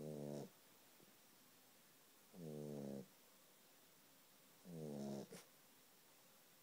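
A sleeping puppy snoring: three short, pitched snores about two and a half seconds apart.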